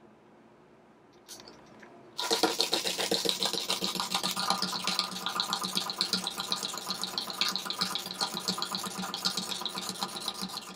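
Clockwork motor of a wind-up toy bunny whirring and rattling as it hops, a rapid, even clicking that starts suddenly about two seconds in, after a faint click.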